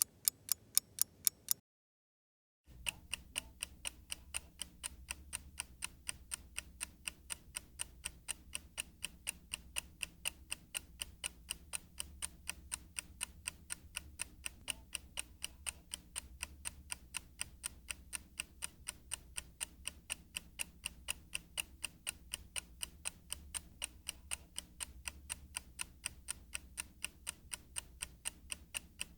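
Clock ticking at a steady pace of several ticks a second. The ticking stops for about a second near the start, then another clock's ticking resumes, a little quieter, with a low hum beneath it.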